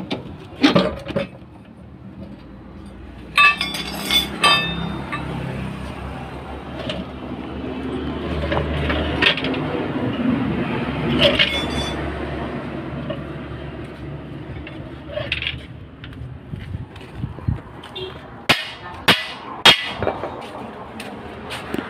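Metal tools clinking and knocking on a vehicle's front leaf-spring hardware during a broken-spring repair. There are a few sharp, ringing strikes about three to four seconds in and another near the middle, and a quick run of knocks near the end. A low rumble swells and fades through the middle.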